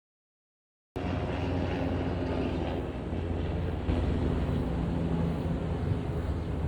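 About a second of silence, then a steady low hum over a light hiss of background noise.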